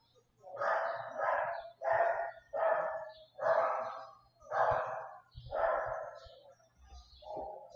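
An animal calling over and over, about eight calls roughly a second apart, each lasting about half a second.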